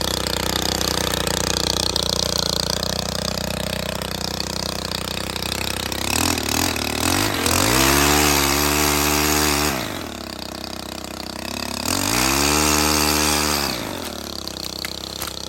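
Stihl HT 131 pole saw's engine idling, then revved up twice. Each time the pitch rises, holds for about two seconds and drops back to idle.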